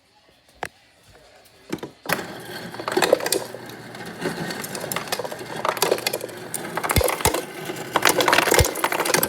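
Ice cubes clattering and rattling as they are pushed down into a garbage disposal drain, starting about two seconds in and running as a dense rattle, with a few low thumps near the end.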